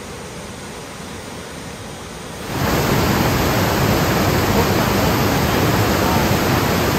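Waterfall: the whitewater cascade of the Raquette River's upper falls rushing steadily, turning sharply louder about two and a half seconds in.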